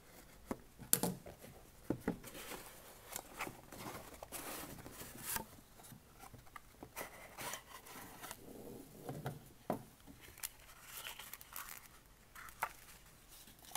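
Packaging being opened by hand: a pocket knife slitting the tape on a cardboard box, then cardboard flaps scraping and rustling with irregular clicks, the sharpest about a second in. Near the end a plastic bag crinkles as it is handled.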